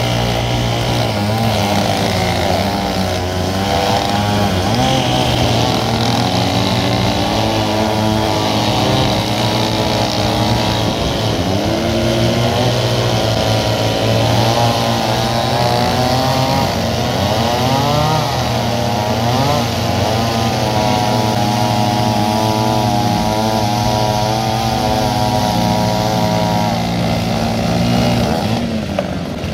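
Two two-stroke chainsaws running at once while cutting through large logs, their engine pitches rising and falling and overlapping as the saws go into and come out of the wood.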